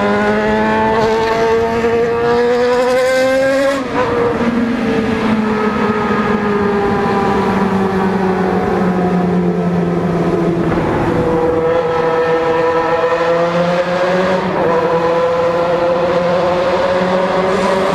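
Yamaha XJ6 motorcycle's inline-four engine under way, climbing in revs for about four seconds before dropping sharply as it shifts up. The revs then ease off slowly and climb again, with another shift about three-quarters through.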